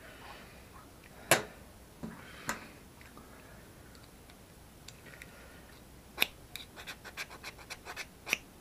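Small fire steel (ferro rod) being scraped with a sharp metal edge: two single sharp scrapes about a second apart, then a quick run of short scrapes and clicks near the end. The rod is tarnished and gives poor sparks.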